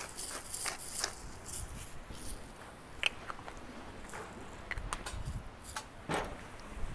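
Eggs, bacon, sausage and hash browns frying on a Blackstone flat-top griddle, with eggs sizzling in butter and oil: a soft hiss with scattered crackles and pops of hot fat.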